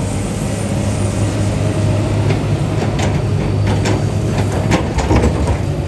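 Heavy machinery engine running steadily, with scattered sharp metallic clanks and knocks.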